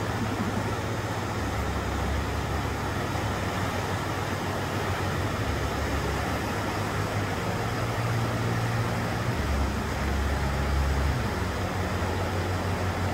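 Steady rush of a river's whitewater rapids, with a heavy low rumble underneath that swells and fades twice.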